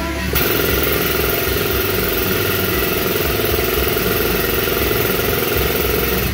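A motor-driven machine starts about a third of a second in and runs steadily at an even speed, with a fast, even pulse.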